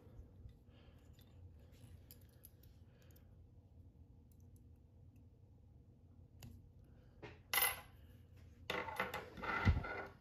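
Faint clicks of fly-tying tools being handled, then a short metallic clink about seven and a half seconds in and a longer spell of clinking and rattling near the end as small metal tools are put down or picked up.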